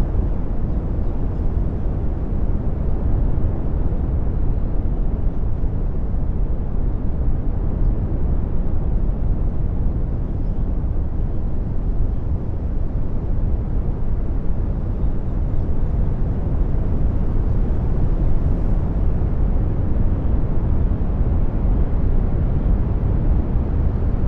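Generated brown noise: a steady, deep hiss strongest in the low end and fading toward the highs.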